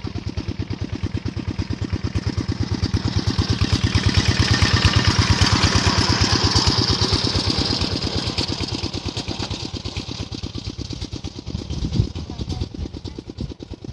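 A small engine with a rapid, even pulsing beat, growing louder to a peak about five seconds in and then fading, as it passes by.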